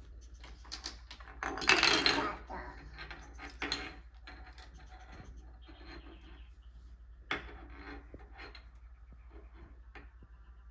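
Small plastic toy vet tools clattering and knocking on a wooden coffee table as they are handled, with the loudest clatter about two seconds in and a few sharp single knocks after it.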